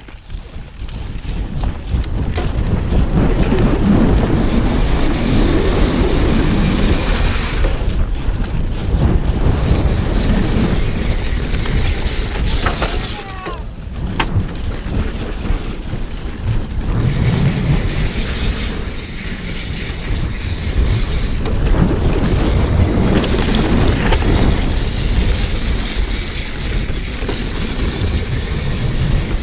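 Wind noise on a GoPro microphone and knobby mountain-bike tyres rumbling over a dirt trail at speed, the noise building over the first few seconds and surging with the turns.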